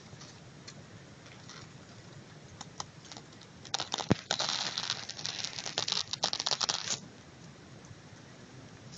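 Dry grass and leaves crackling and rustling close to the microphone for about three seconds in the middle, with one sharp snap near the start. The noise stops suddenly.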